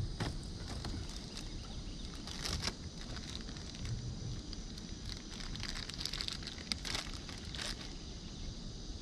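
Steady outdoor river background hiss with scattered short clicks and crackles.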